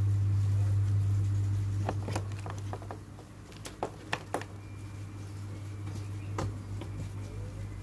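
Fingertips tapping on a tablet's touchscreen: a handful of short, sharp taps, scattered irregularly, over a steady low hum that drops off after about two seconds.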